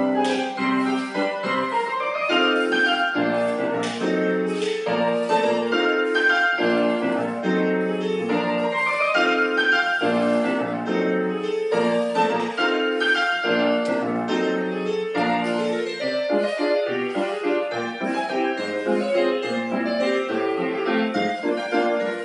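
Solo piano playing classical ballet-class accompaniment for grand battement at the barre, with a regular beat.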